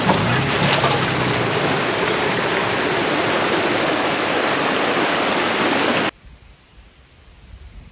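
Loud, steady rushing noise that cuts off abruptly about six seconds in, leaving a much quieter low rumble with a few soft thumps.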